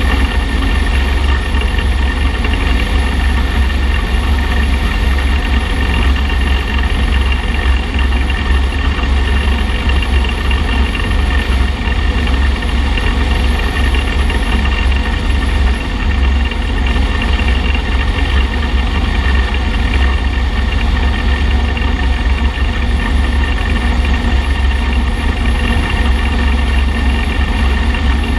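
Motorcycle at a steady highway cruising speed, its engine running evenly under wind noise on the microphone.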